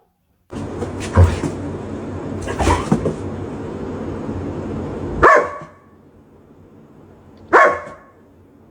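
A dog barking in single sharp barks a couple of seconds apart, over a steady rushing background for the first few seconds; the dog is barking at its own reflection.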